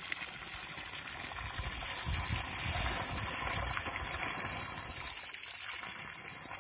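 Water pouring steadily from the outlet of a farm irrigation pipe and splashing onto the ground, with hands rinsing in the stream.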